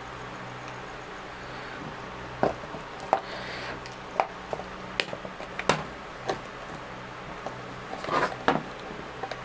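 Irregular small clicks and taps of a thin metal screwdriver prying and scraping at a plastic Bluetooth speaker casing to unlock it, over a low steady hum.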